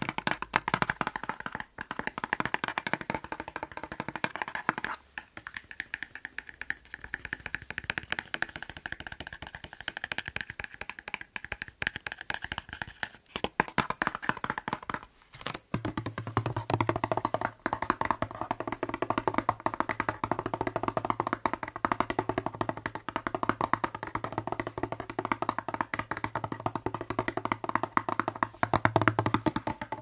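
Rapid fingertip tapping on a hollow plastic spray bottle held close to the microphone, a dense run of many taps a second with brief pauses about five and fifteen seconds in.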